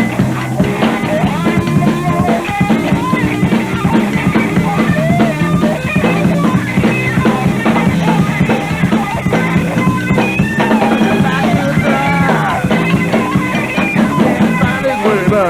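Rock band playing live in an instrumental passage: a drum kit and a steady bass line under a lead line with bending, sliding notes.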